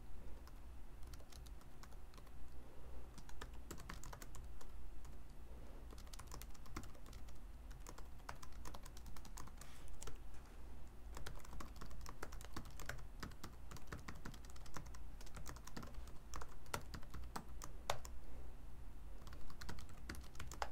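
Typing on a computer keyboard: irregular keystrokes in runs with short pauses, over a low steady hum.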